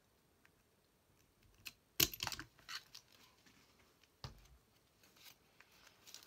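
Crop-a-Dile hole punch punching through a paper moth cutout on a plastic View-Master reel: a sharp crunching snap about two seconds in, with crinkling handling around it, then a single click a couple of seconds later.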